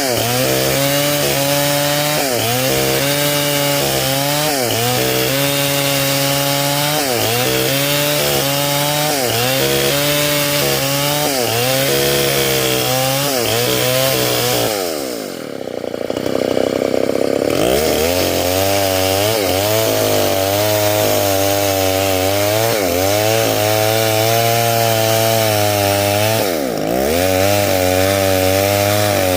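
Stihl 070 two-stroke chainsaw running hard while ripping durian wood lengthwise, its pitch sagging and recovering every couple of seconds as it works. About halfway the engine drops to idle for a couple of seconds, then revs back up into the cut, with one more short dip near the end.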